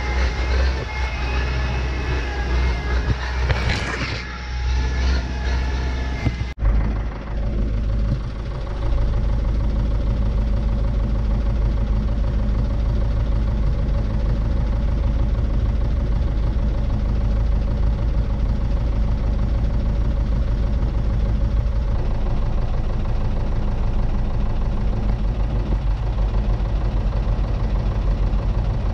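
Hop-harvesting machinery running with several steady high whining tones, then after a sudden cut about six seconds in, a tractor's diesel engine running steadily, heard from inside the cab.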